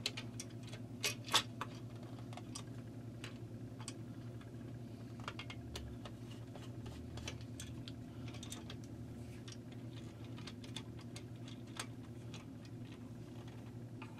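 Scattered small clicks and taps of a screwdriver backing out screws and of a plastic cover being worked loose from a metal chassis, a few sharper ones about a second in, over a steady low hum.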